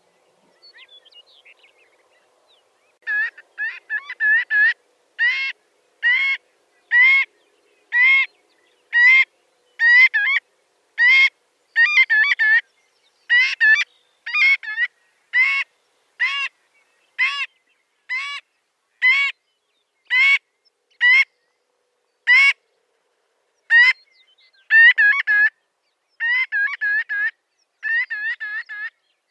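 Marbled godwit calling. A string of loud calls, each rising then falling in pitch, repeated about once a second, starts about three seconds in. Near the start and again near the end the calls speed up into quick runs of short notes.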